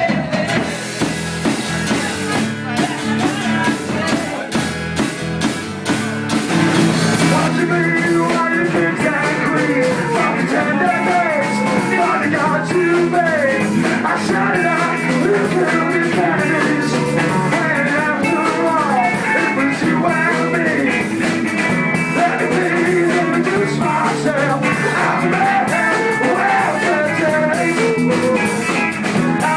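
Live rock-and-roll band playing, with guitar and singing; the music gets fuller and louder about seven seconds in.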